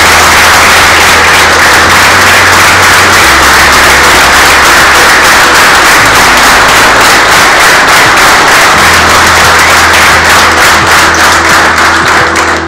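A roomful of people applauding loudly, with background music underneath. The applause dies away near the end, leaving only the music.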